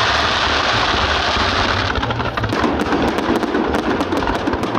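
Fireworks display: a dense, steady hiss for about the first two seconds, then a rapid run of sharp bangs and crackles, several a second.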